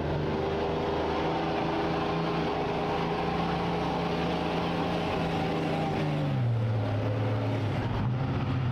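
Diesel pickup truck engine holding steady high revs, then dropping to a lower pitch about six seconds in.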